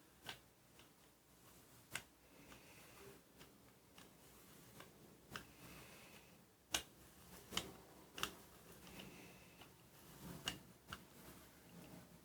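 Faint clicks and soft tacky hissing of a rubber brayer being rolled back and forth through thick paint on a gel printing plate, with a stroke every few seconds.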